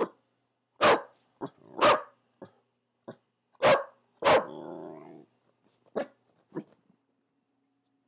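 A corgi barking at a noise outside: a run of about ten short, separate barks, four of them loud and the rest softer, stopping about a second before the end.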